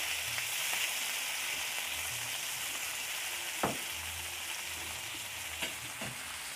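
Chopped tomatoes, shallots, garlic and chilies sizzling in hot oil in a steel wok as they start to fry, with a steady hiss. A metal spatula stirs them, clinking against the pan a few times, most sharply about three and a half seconds in.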